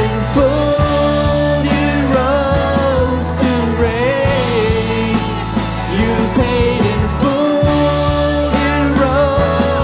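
Live worship band of electric and acoustic guitars, bass guitar and keyboard playing a slow song, with two singers holding a wavering sung melody over steady bass notes.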